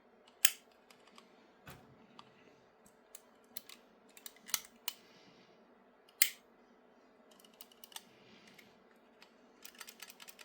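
Small, irregular clicks and taps of springs and small parts being fitted into a 3D-printed RC car chassis by hand. A sharper click comes about half a second in and another around six seconds, and a quick run of small clicks near the end.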